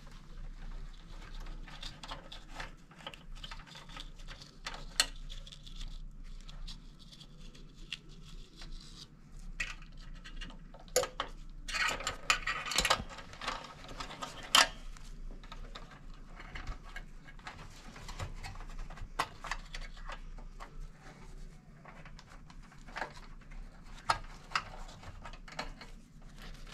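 Gloved hands handling wires and pulling push-on terminal connectors inside a sheet-metal heater housing: scattered clicks, taps and rustling, with a louder rustle about halfway through.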